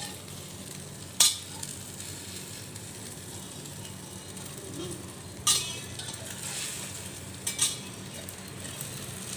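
Egg and winged-bean omelette sizzling steadily in hot oil in a metal pan, with three sharp clinks about a second, five and a half and seven and a half seconds in.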